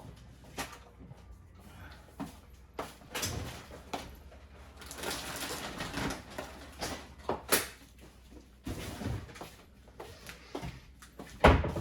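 Scattered clicks and knocks of things being handled, with a scrape lasting a second or so about five seconds in and a heavy thump near the end.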